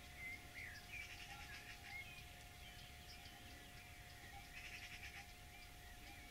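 Faint high animal calls: short chirps and sliding squeaks, with rapid trills about a second in and again near the end, over a faint steady hum.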